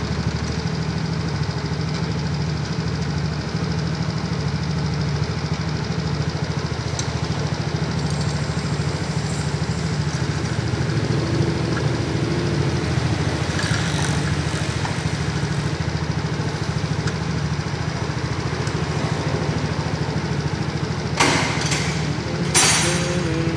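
Yamaha Mio J scooter's single-cylinder four-stroke engine idling steadily. Two short, sharp noises come near the end.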